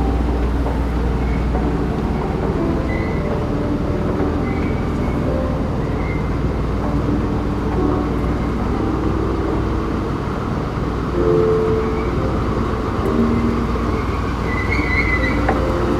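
2013 Schindler 9300AE escalator running, heard from its moving steps while riding: a steady mechanical rumble with faint short tones over it.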